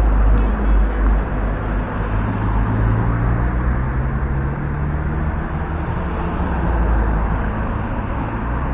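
Outdoor road traffic: a steady low rumble of vehicle engines with a constant background hiss.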